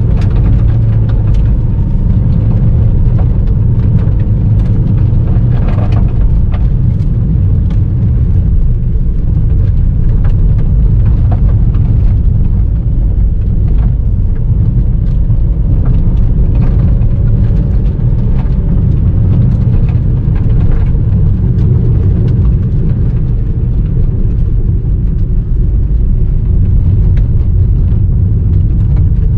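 A car driving on a gravel road, heard inside the cabin: a steady low rumble of tyres and engine, with scattered ticks of gravel striking the underbody.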